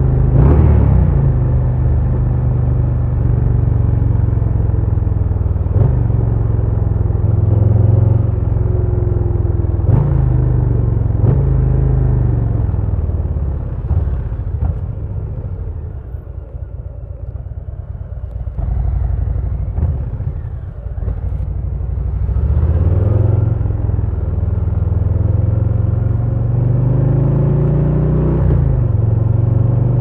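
2022 Harley-Davidson Low Rider S's Milwaukee-Eight 117 V-twin running on the move. The engine note climbs and drops through several gear changes, goes quieter as the bike eases off about halfway through, then rises again as it accelerates.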